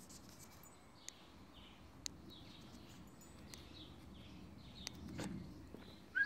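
Faint garden ambience with small birds chirping on and off, a few light clicks, and one short, sharp squeak near the end.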